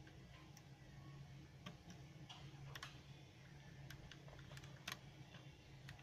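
Faint, irregular clicks of a Nissan Armada's dashboard control buttons and knob being pressed, about eight or nine in all, over a steady low hum.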